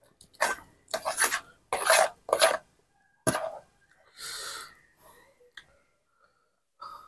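Close eating sounds: a metal spoon scraping and scooping rice and noodles on a metal plate, with chewing. They come as a string of short rasping bursts, with a sharp click about three seconds in.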